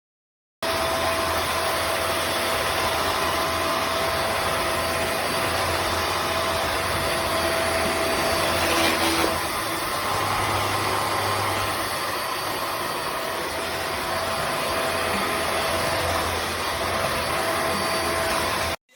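Vax Mach Air upright vacuum cleaner running steadily: a loud, even rush of air with a steady motor whine. It cuts in suddenly under a second in and cuts off abruptly near the end.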